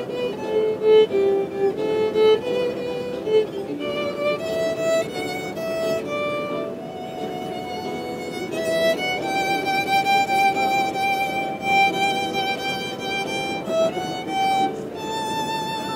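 Solo violin, a white 3D-printed one, bowed: a quick run of short melody notes, then longer held notes, the longest one held with vibrato about halfway through.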